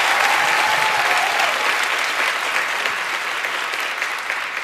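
Studio audience applauding steadily, easing off slightly towards the end.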